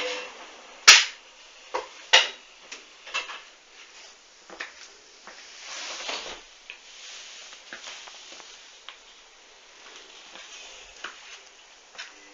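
Hoover washing machine paused between drum turns in a duvet wash: the motor hum stops, leaving a series of irregular sharp clicks and knocks, the loudest about a second in, over a faint hiss.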